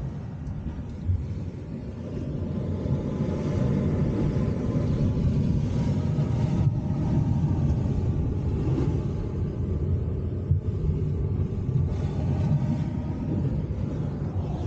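Wind on the microphone, a low steady rumble, with the sea washing over the rocks behind it.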